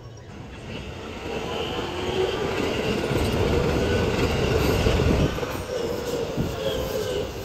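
A JR West electric commuter train pulling into the platform and slowing, its wheels and brakes squealing. The sound builds from about a second in and eases in the second half. It is played back at triple speed.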